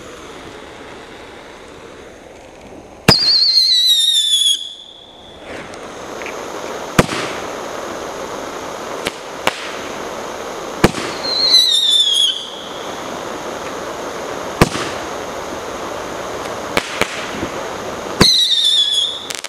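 Crazy Diamonds Roman candle firing: about nine sharp bangs spaced a second or several apart over a steady hissing burn. Three loud whistles, each falling in pitch over about a second, come a few seconds in, about halfway through and near the end.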